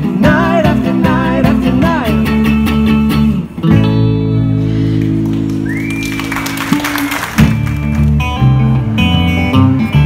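Live two-piece rock band playing: electric guitar and electric bass through a small PA. About three and a half seconds in, the riff breaks off into a long held, ringing chord, and the full playing comes back in about two-thirds of the way through.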